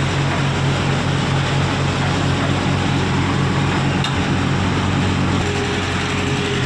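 JCB 155 skid steer loader's diesel engine running steadily.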